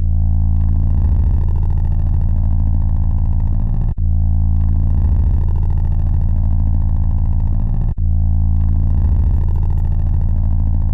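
Song intro: a loud, droning, distorted bass synth loop with an engine-like rumble. It pulses steadily and cuts out for an instant every four seconds as the loop repeats.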